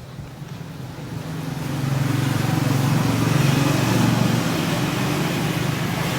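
Honda Vario 110 scooter's single-cylinder four-stroke engine running, growing louder from about a second and a half in, then holding steady.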